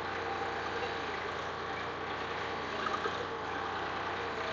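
Tractor engine running steadily under load, pulling a two-disc hydraulic disc plough through the soil.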